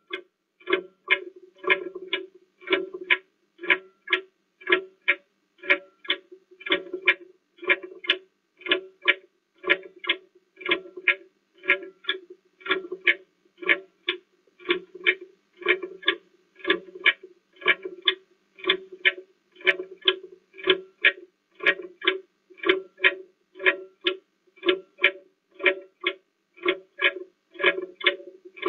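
Countdown timer sound: a steady run of short, plucked-sounding ticks, about three a second, marking a 30-second answering time.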